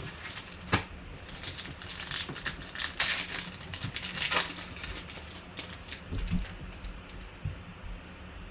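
Football trading-card packs being opened and handled: wrapper crinkling and tearing and cards sliding, in a run of short scratchy rustles and clicks, busiest in the middle.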